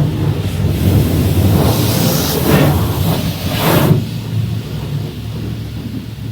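High-pressure water spray at a car wash, hissing in several surges for about three seconds and then stopping abruptly, over a steady low machine hum.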